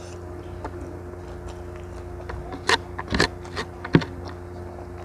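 Close-miked hand-eating sounds: quiet chewing, then a handful of sharp clicks and taps in the second half, the loudest near the end, as fingers gather rice and food from a metal tray. A steady low hum runs underneath.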